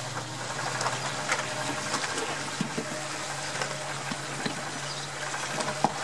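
Twin 115 hp outboard motors running with a steady low hum, with water rushing along the hull and a few small knocks.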